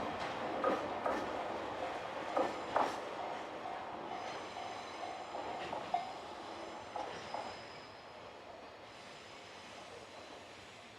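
Freight train wheels clacking over rail joints as the train passes and draws away, growing fainter, while a level-crossing warning bell rings in a steady repeated beat that stops about six seconds in. A faint high squeal of wheel flanges lingers in the second half.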